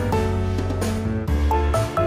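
Background music with a steady beat, bright pitched notes over a bass line.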